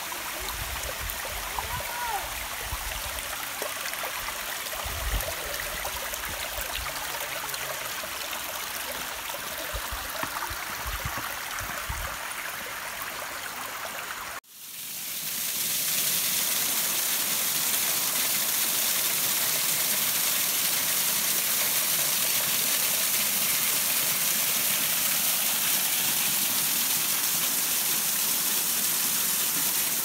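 Water rushing steadily from a thin, low-flowing waterfall. In the first half, wind buffets the microphone in low thumps. About halfway through, the sound cuts to a louder, steadier splashing of the falling water.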